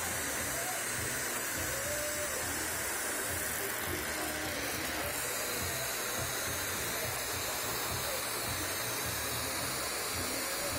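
Steady rushing hiss of glassworking bench torches burning, together with the studio's ventilation, with faint voices in the background.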